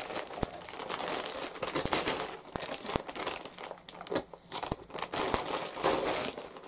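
Thin plastic mailing bag crinkling and rustling as it is handled and cut open with scissors, with short clicks throughout.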